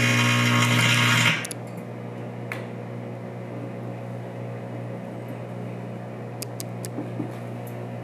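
Microwave-generated plasma glowing in a glass vial, a loud hissing buzz over the oven's low hum, which cuts off suddenly about a second in. The microwave oven then keeps running with a steady hum, broken by a few faint sharp ticks.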